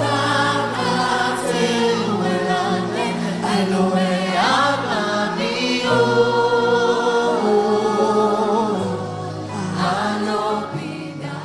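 Gospel worship music: a choir singing slow sustained lines over a held keyboard pad and bass notes.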